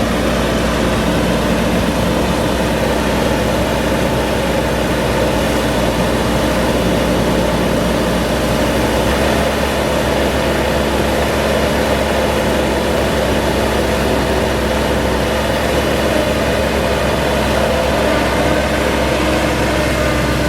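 Bobcat T190 turbo skid steer's diesel engine running steadily at a constant speed.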